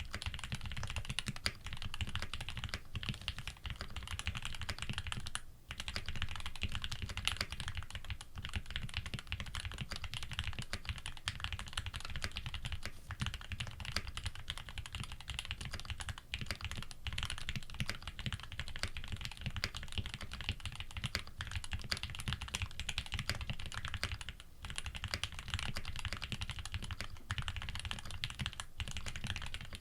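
Continuous fast typing on a custom TX65 mechanical keyboard with a brass plate, lubed Tealios v2 linear switches and GMK keycaps, a dense run of key strikes with brief pauses about five seconds in and again near twenty-four seconds.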